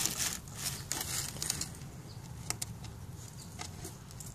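Rustling and scraping against a cardboard box as a hand reaches around inside it: a louder rustle at the start, then scattered brief scratches and taps.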